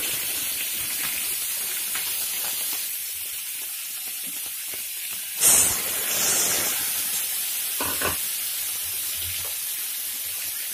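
Prawns sizzling as they fry in hot mustard oil in a frying pan. About five and a half seconds in, more prawns are tipped in from a bowl and the sizzle flares up loudly, with a brief knock a couple of seconds later.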